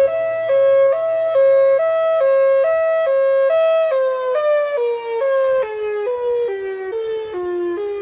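Federal Signal Thunderbolt 1003 outdoor warning siren sounding its Hi-Lo fire signal, a loud two-tone wail alternating high and low about twice a second. About four seconds in the siren begins winding down, both tones sliding steadily lower while still alternating, and a low drone underneath stops partway through.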